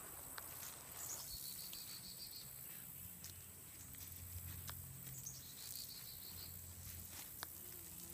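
Insects droning steadily in a high, even pitch, while a bird gives a short trill twice, about a second in and again near the middle, each starting with a falling slur. A few soft clicks are heard in between.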